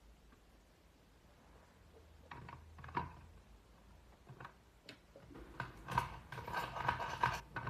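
Light clicks and knocks of tools and a small circuit board being handled during soldering work: a few single clicks after a couple of quiet seconds, then a busier run of clicking and rattling near the end.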